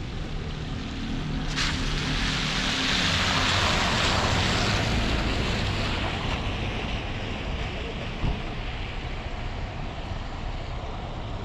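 A vehicle going by: a rushing noise that swells over a couple of seconds, is loudest about three to four seconds in, and slowly fades, with a low engine hum under it early on.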